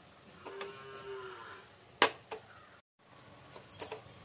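A drawn-out animal call with a slightly arched pitch, lasting about a second, in the background. Then a sharp metallic knock about halfway through, with a lighter one just after, and a few light clinks of a steel bowl against a steel mixer jar near the end.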